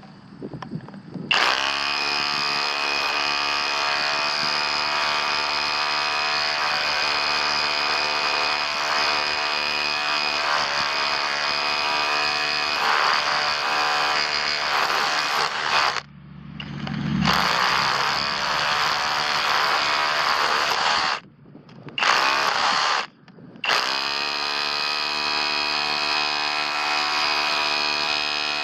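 Kobalt 24V Max SDS Plus rotary hammer running and hammering at a steady, even rate in long runs. It stops about halfway through and winds back up, then cuts out twice briefly before running on.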